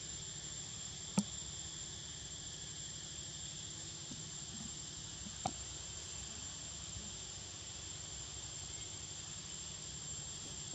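Steady chorus of forest insects: a thin, high, unbroken whine over a softer hiss. Two sharp clicks stand out, about a second in and again about five and a half seconds in.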